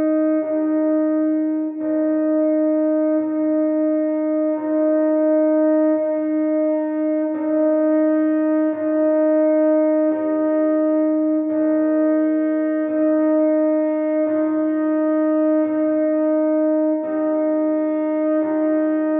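Computer playback of a choir's alto line holding the same E-flat, each note a full bar long and re-sounded about every second and a half with a steady, wind-like tone. Quieter accompanying parts change pitch above and below it.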